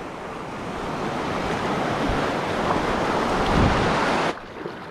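Waves washing through rocky shallows, with wind noise on the microphone. The noise builds steadily and then drops off abruptly near the end.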